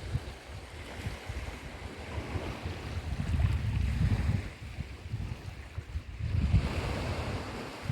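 Sea waves washing in, with wind buffeting the microphone; the rumble swells louder twice.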